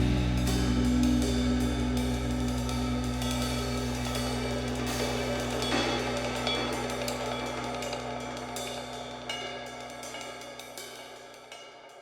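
Background music with sustained low notes and cymbal and hi-hat strokes, fading out steadily.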